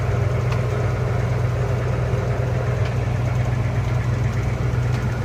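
A large bus's diesel engine idling steadily, heard from inside the driver's cab.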